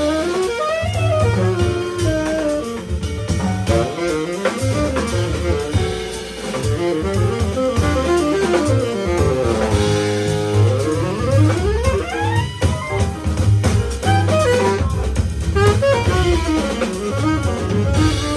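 Live jazz quintet playing: tenor saxophone, piano, double bass, drum kit and electric guitar, with a fast rising run about two-thirds of the way through.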